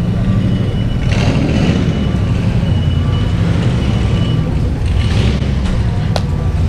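A motor vehicle's engine running close by, a steady low rumble, with a faint high tone coming and going and two short bursts of hiss, about a second in and about five seconds in.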